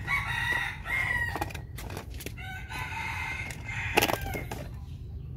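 A rooster crowing in two calls, with a sharp click about four seconds in, the loudest moment, and a few softer clicks.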